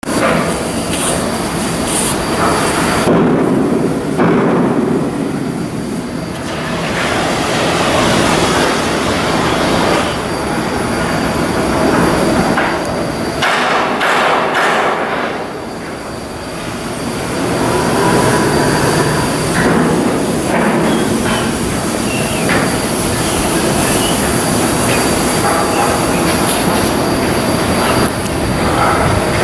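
Loud, continuous machinery noise with a metallic squeal in it, easing briefly around the middle.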